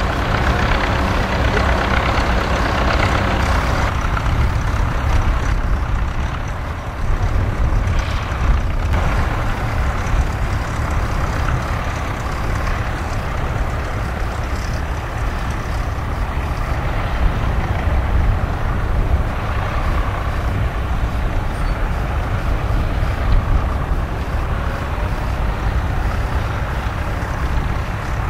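Fendt 724 Vario tractor's six-cylinder diesel engine running steadily under load, pulling a six-furrow reversible plough through the soil.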